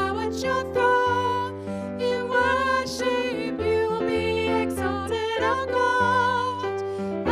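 A woman singing a worship song into a microphone, accompanied by sustained keyboard chords.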